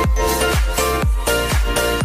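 Background dance music with a steady four-on-the-floor kick drum, about two beats a second, under sustained synth chords.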